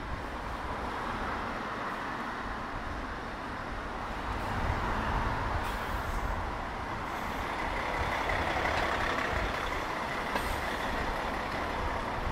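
Road traffic on a busy city street, a steady wash of engine and tyre noise. A deeper rumble swells through the middle as a larger vehicle goes by.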